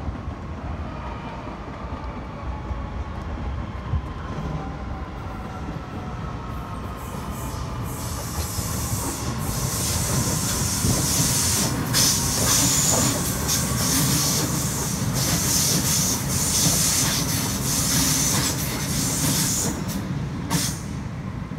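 Double-deck electric passenger train passing close below on the junction tracks: a faint whine slowly falls in pitch, then the run of the train builds to a loud hiss of wheels on rail with rapid clicks and clacks over the rail joints and points, fading near the end.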